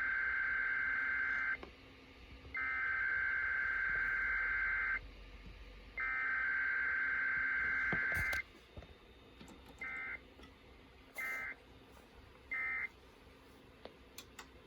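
Emergency Alert System SAME data bursts: three long, buzzy header bursts of about two and a half seconds each, then, with no attention tone or message between them, three short end-of-message bursts about a second and a quarter apart. It is a garbled, malfunctioning test alert.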